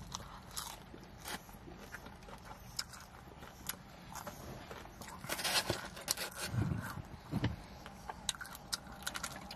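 Close-miked mouth sounds of a piece of fried chicken being bitten and chewed: a run of short sharp clicks and smacks, busiest about five and a half seconds in.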